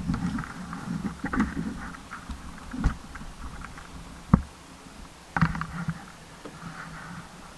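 Rustling and shuffling of people moving about in a small wooden blind, with a few sharp hollow knocks: one about three seconds in, the loudest about four and a half seconds in, and another about five and a half seconds in.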